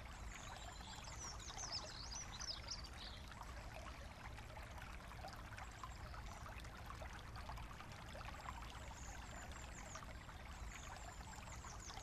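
Shallow brook trickling and babbling over its bed, a steady, faint, crackling water sound. Bird chirps come over it in the first few seconds and again near the end.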